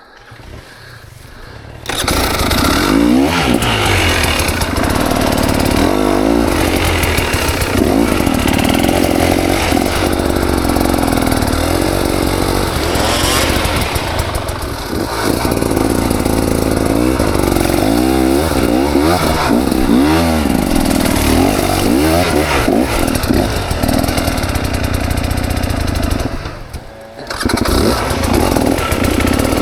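KTM 300 XC two-stroke dirt bike engine starting about two seconds in, then running and revving up and down repeatedly. Near the end it drops away for about a second and then picks up again.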